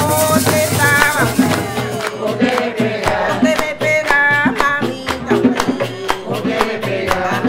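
Bullerengue music: a woman's voice singing over steady drum strokes and a rattling shaker.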